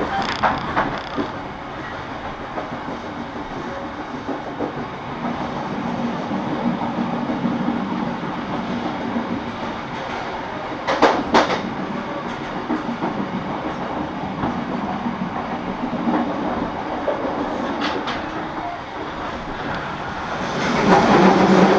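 Argo Parahyangan passenger train running along the track, a steady rolling noise of wheels on rail heard from inside the coach at the window. A short run of sharp clicks comes about halfway through, and the noise grows louder near the end.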